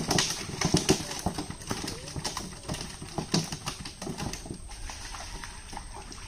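Irregular sloshing and squelching as hands and legs churn through shallow muddy water and soft mud, busiest for the first four seconds or so and then thinning out.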